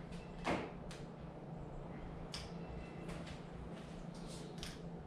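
Several faint, short clicks of a Honda CB500's handlebar switches being worked while its electrics are tested, over a low steady hum.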